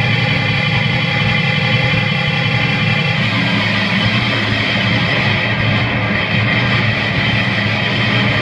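Live harsh noise music: a loud, dense wall of distorted drone with steady layered tones, growing thicker and harsher about three seconds in.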